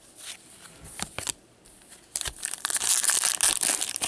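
A few soft clicks of cards being handled, then from about two seconds in, a dense crinkling as a trading-card pack's shiny wrapper is torn open.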